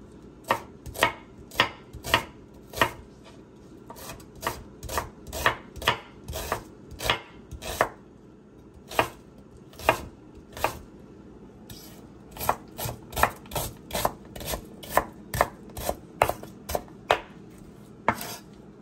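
Kitchen knife chopping seasoning vegetables on a cutting board: sharp strokes about two to three a second, with two short pauses along the way.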